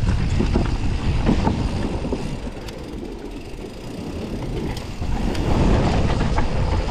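Mountain bike running down a bike-park trail: wind buffeting the microphone over tyre noise, with scattered rattling knocks from the bike on rough ground. It eases off in the middle and gets louder again about five seconds in.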